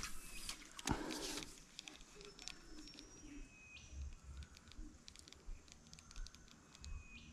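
Quiet creekside bush sounds: a brief rustle about a second in, then scattered faint clicks and a few thin, high, steady whistle notes from birds or insects.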